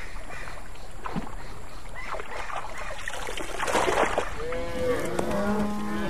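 Cattle mooing: several overlapping drawn-out moos starting past the middle, some rising and falling, one held at a steady pitch, over a steady low background.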